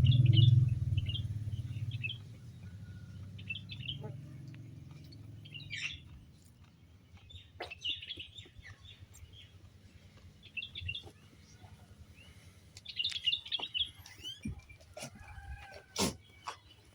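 Small birds chirping in short, repeated bursts. A low rumble is the loudest sound in the first two seconds, and a few sharp clicks come near the end.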